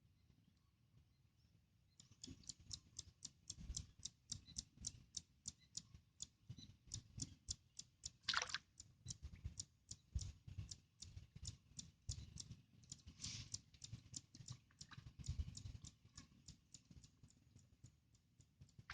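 Faint, regular clicking, about three clicks a second, starting about two seconds in, with a short rushing sound about eight seconds in.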